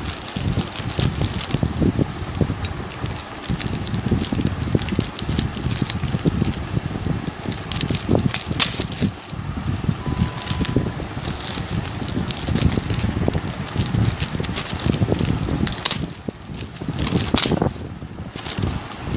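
Packaging being handled and unwrapped: irregular rustling and crinkling with scattered clicks and knocks, and rumbling handling noise on the microphone.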